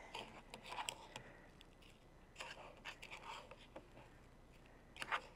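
Faint, intermittent scraping and rubbing as a raw chicken drumstick is turned and pressed into a dry brown-sugar spice rub in a plastic mixing bowl, with a spoon knocking against the bowl. The sound is a little louder near the end.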